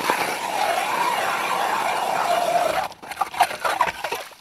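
A 110 mm Nero hand ice auger with semicircular blades cutting into wet ice: a continuous grinding scrape for about three seconds, then a few uneven scrapes that die away near the end.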